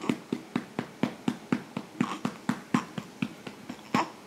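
A hand patting a baby's back to bring up a burp: steady light pats, about four a second, with one firmer pat near the end.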